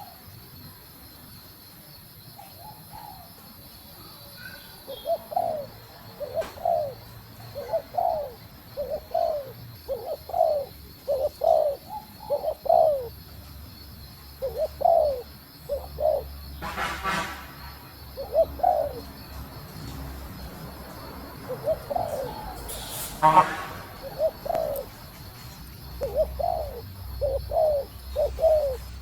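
Female spotted dove cooing: runs of short, low coo notes, with two louder, harsher calls partway through.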